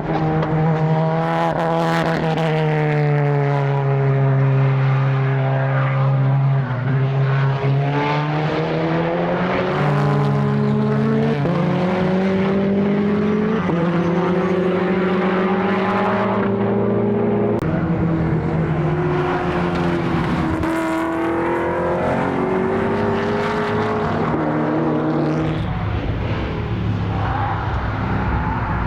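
A time attack race car's engine running hard on circuit. Its pitch sweeps down and up and jumps in steps as the gears change.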